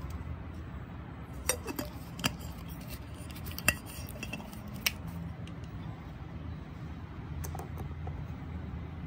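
Metal sport water bottle with a plastic flip lid being handled: a handful of sharp clinks and knocks, mostly in the first five seconds, then a few faint ones.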